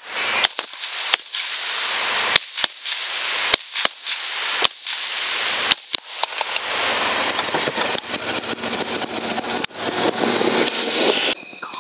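Rapid, irregular rifle fire from several hunters shooting at hogs: about ten sharp shots in the first six seconds, a couple more later, with a steady rushing noise between them.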